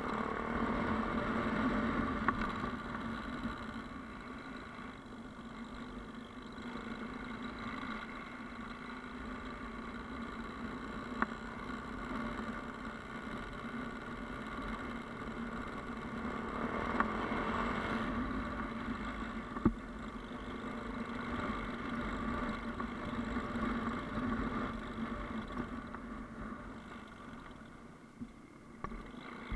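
Yamaha Ténéré motorcycle engine running steadily on a dirt track, swelling and easing off a few times as the throttle changes. A few sharp knocks cut through it.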